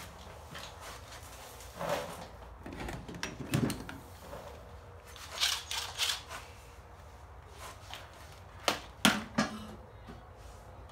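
Scattered clicks and knocks of a cordless driver and pipe fittings being handled and snugged onto a Turbo 400 transmission case. The loudest are two sharp knocks about nine seconds in.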